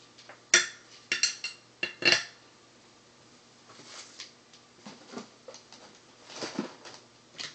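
Small hard objects clinking and knocking on a workbench: a quick run of sharp clinks in the first couple of seconds, then softer scattered knocks and handling noises.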